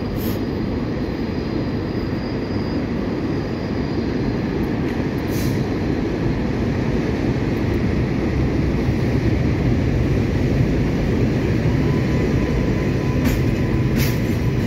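New York City Subway R188 train on the elevated IRT Flushing Line moving along the platform: a steady rumble of wheels and traction motors that slowly grows louder, with sharp rail-joint clicks near the end.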